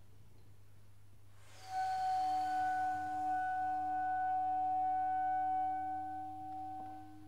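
Clarinet holding one long steady high note for about five seconds, starting about a second and a half in, joined shortly after by a second, lower held note. Both fade out near the end, over a faint steady electrical hum.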